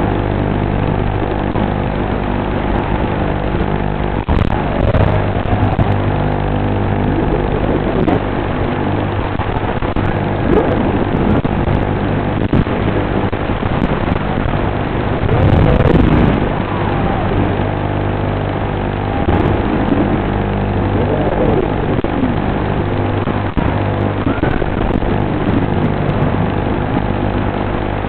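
4S micro FPV quadcopter's motors and propellers whining. The pitch rises and falls with the throttle punches, with the biggest surge about halfway through.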